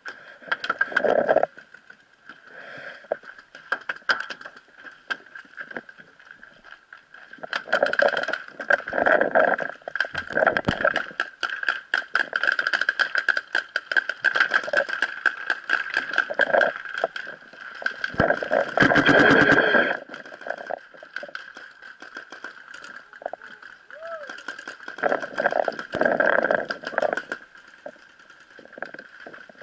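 Paintball markers firing rapid strings of sharp shots, densest in the middle, with voices calling out between the strings. A steady high-pitched whine runs underneath throughout.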